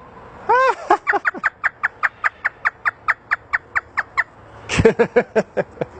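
Parrot imitating a hysterical human laugh: one rising-and-falling call, then a rapid run of short falling 'ha' notes, about five a second, for about three seconds, with a few more notes near the end.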